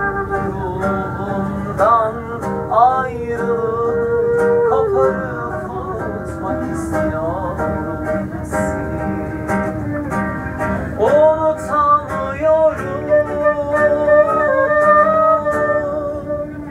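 Silver transverse concert flute playing a slow, held melody, sliding up into some of its notes.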